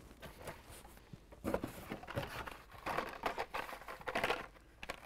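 Hot Wheels blister cards being handled, the plastic blisters and cardstock backs rustling and knocking against each other and the cardboard case in a run of short bursts.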